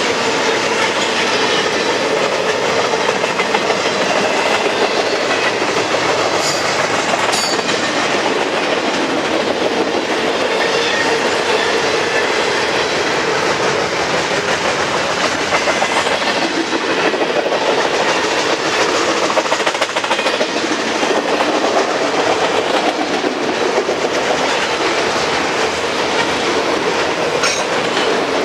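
Freight train's double-stack intermodal well cars and auto-rack cars rolling past: steel wheels on rail make a steady, loud rolling clatter. Two brief sharp clicks come about a quarter of the way through.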